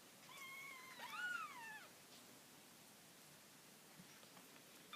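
Three-week-old kitten mewing: a thin, high call held steady that runs into a second mew rising and then falling in pitch, over about a second and a half near the start. Another short mew begins at the very end.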